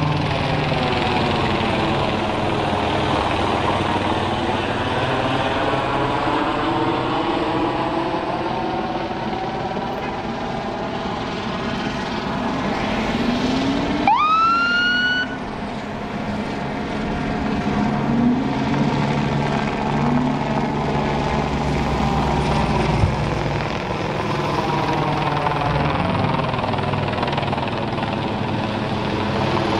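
Police helicopter running overhead, its sound slowly swelling and fading in sweeps, over the low running of vehicle engines on the street with a few short revs. About halfway through, a police car siren gives one short rising whoop.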